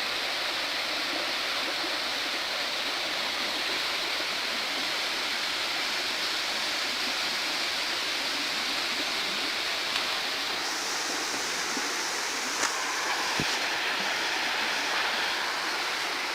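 Mountain stream cascading over rocks in a small waterfall, a steady even rush of water. A couple of faint clicks come late on.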